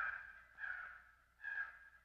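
Crow cawing: a run of harsh caws under a second apart, fading away, with one ending at the start and two more about two-thirds of a second and a second and a half in.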